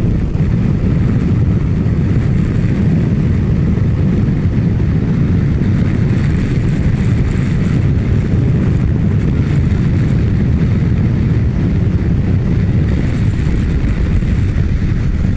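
Kawasaki Ninja 1000SX cruising at about 120 km/h on an expressway in strong wind: a steady low roar of wind rushing over the microphone, mixed with the bike's running noise.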